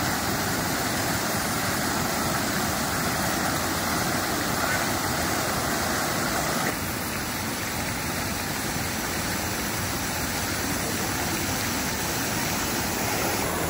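Many fountain jets spraying and splashing into a shallow pool: a steady rushing of falling water, slightly quieter from about halfway on.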